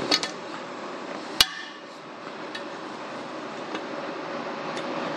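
A single sharp metallic clank with a short ring, about a second and a half in, from metal striking metal during hand work on the tractor; a couple of lighter clicks come at the start, over a steady mechanical hum.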